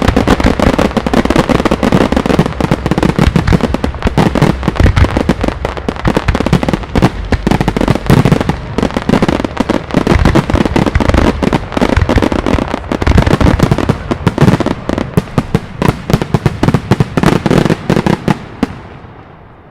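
Fireworks display finale: a dense barrage of aerial shell bursts and salutes going off many times a second, dying away near the end.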